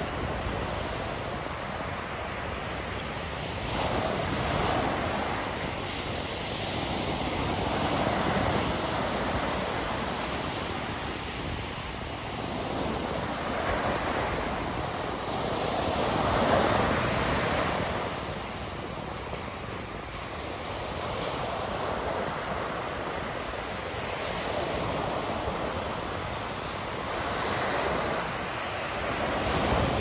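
Ocean surf breaking and washing up a sandy beach, a steady rushing wash that swells every few seconds as each wave comes in.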